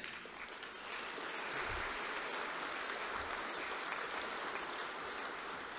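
Audience applauding steadily, many hands clapping together; it eases off slightly near the end.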